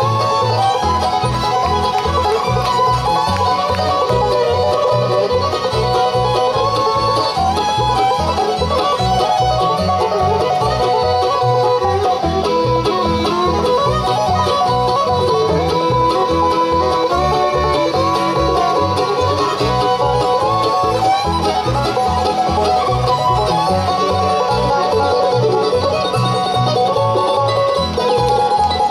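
Live bluegrass band playing: banjo, fiddle, mandolin, acoustic guitar and upright bass together, with the bass keeping a steady beat underneath.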